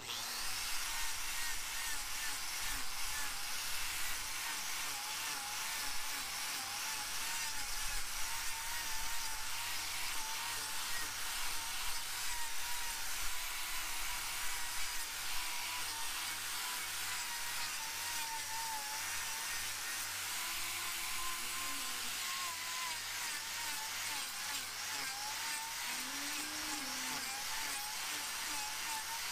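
Electric angle grinder with an abrasive disc switching on and grinding down a cow's overgrown hoof claw, its motor whine wavering up and down as the disc bites into the horn.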